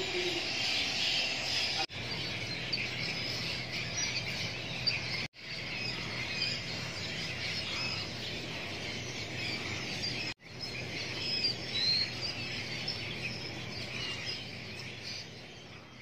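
A dense chorus of wild birds chirping and calling in the trees, many short high chirps overlapping. The sound drops out abruptly three times, for a moment each, and fades away near the end.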